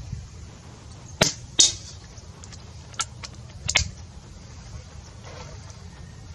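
A shot from an FX Wildcat .177 PCP air rifle: a sharp crack, then about a third of a second later the smack of the 13-grain slug hitting the downrange target. Two more short sharp clicks follow a couple of seconds later.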